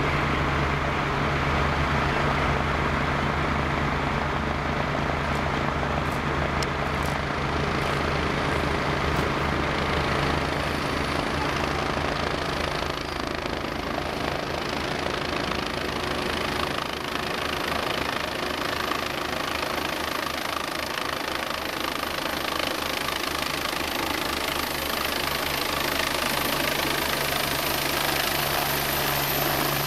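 An Agusta A109 air-ambulance helicopter approaches and descends to land, its rotor beat growing plainer through the second half. Early on it is heard over the steady hum of an idling ambulance engine close by.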